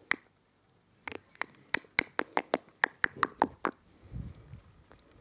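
A person clicking their tongue rapidly, about five sharp clicks a second for two to three seconds, the pitch of the clicks dropping toward the end; low rustling follows.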